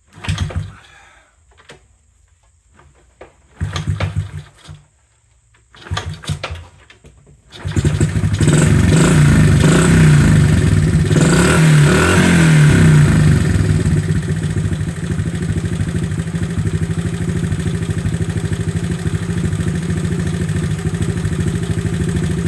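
A 1970 Honda Trail 70's small single-cylinder four-stroke engine firing on its first start after a top-end rebuild. It catches briefly three times, starts about eight seconds in, runs faster for a few seconds, then settles into a steady idle.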